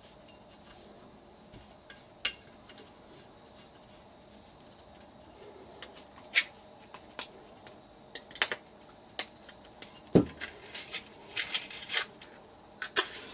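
Light metallic clicks and knocks of a butane torch head and gas canister being handled on a workbench, sparse at first and coming thick and fast from about halfway through, with one heavier thump about ten seconds in.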